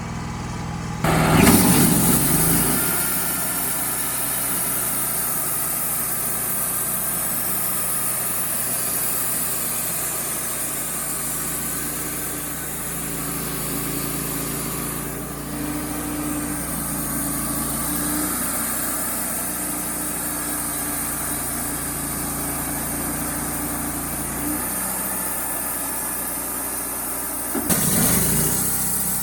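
Wood-Mizer LT35HD band sawmill running steadily as it saws into an oak log. There is a short louder surge about a second in and another near the end.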